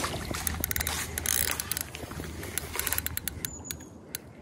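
A carp rod and reel being handled and the reel wound while playing a hooked fish: irregular sharp clicks and rattles over a low steady hum that stops about three seconds in.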